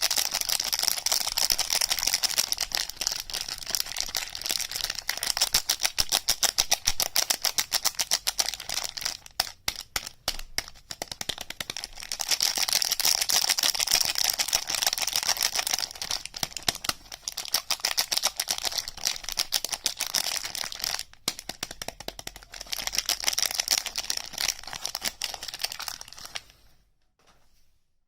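Soap packaging being handled and unwrapped: a long run of rapid crackles and clicks, with a couple of brief pauses, stopping shortly before the end.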